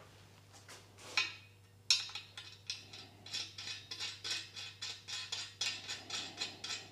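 Light metallic clicking and clinking, several small clicks a second, as 5/16-18 bolts fitted with hex nuts are screwed by hand into a steel mounting bracket.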